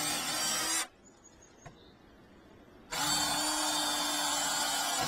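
Power drill drilling screw holes for a door hinge shield. It runs at a steady pitch, stops just under a second in, and starts again about two seconds later.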